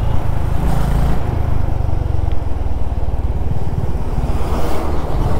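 Honda CB350RS single-cylinder engine running as the motorcycle is ridden, with road noise; the engine note changes about a second in.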